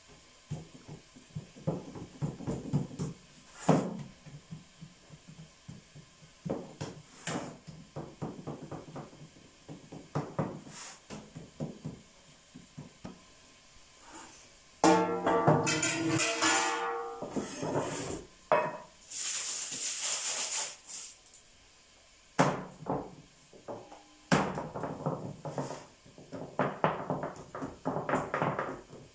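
Aluminium baking trays knocking and scraping on a wooden table as they are handled and dough is patted in them. A few seconds of music play about halfway through, followed by a brief hiss.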